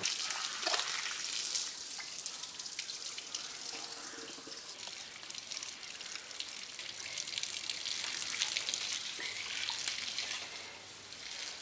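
Water from a garden hose spraying and splashing onto an elephant's leg and the wet ground, a steady hiss with many small splashes and drips.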